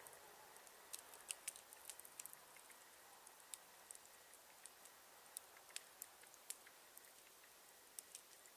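Campfire crackling: irregular sharp snaps and pops, a few louder than the rest, over a faint hiss.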